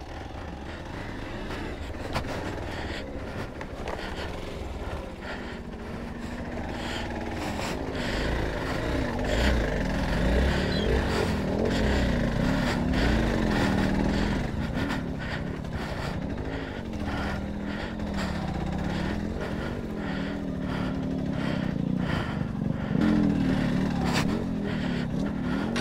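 Off-road motorcycle engine pulling at low speed over rough ground, its revs rising and falling with the throttle and getting louder about six seconds in. Scattered knocks come from the bike bouncing over rocks.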